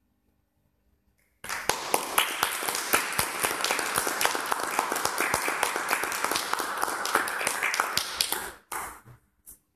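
Audience applauding, starting suddenly about a second and a half in and running steadily for about seven seconds, then thinning to a few last scattered claps.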